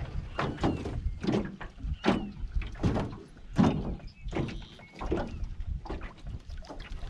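Cast net being hauled hand over hand out of the water into a jon boat: a run of irregular splashes, drips and knocks against the boat's side as the wet net and rope come aboard.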